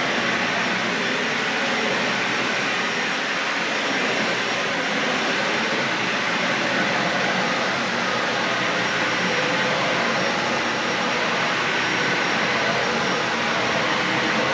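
Dyson Ball Animal 3 Extra upright vacuum cleaner running steadily while vacuuming carpet: an even, unbroken whoosh of motor and airflow.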